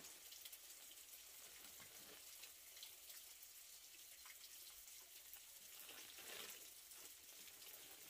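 Faint steady rain: an even hiss of many small drops, swelling louder for a moment about six seconds in.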